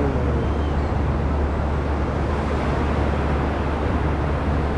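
Steady beach ambience: the even rush of ocean surf mixed with a heavy low rumble of wind on the microphone.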